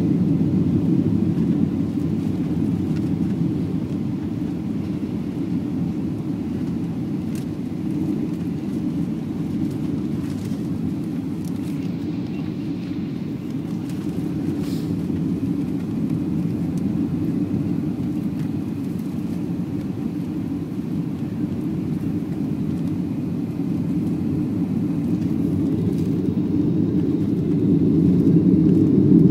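Steady low rumble of engine and airflow noise inside a Boeing 737-800's passenger cabin during the landing approach. It swells louder near the end.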